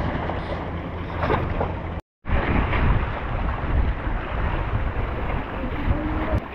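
Wind buffeting the microphone over water washing against the rocky shore. The sound cuts out completely for a moment about two seconds in.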